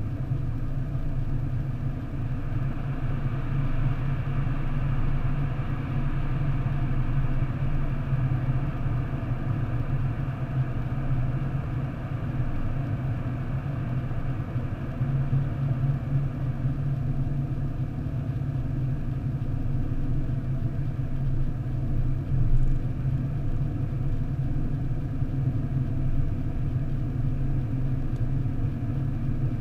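Car driving at steady motorway speed, heard from inside the cabin: a steady low hum of engine and tyre road noise, with one brief knock about three-quarters of the way through.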